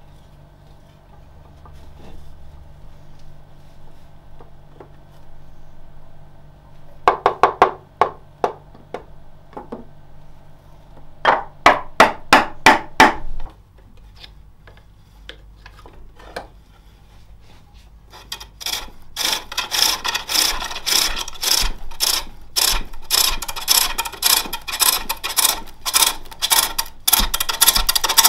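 Spring pole lathe turning a jacaranda plate: a steel hook tool cutting the spinning wood in a fast, even rhythm of scraping strokes, one cut on each downstroke of the treadle, loudest and steadiest in the second half. Earlier come two short runs of sharp wooden knocks and scrapes, a few seconds apart.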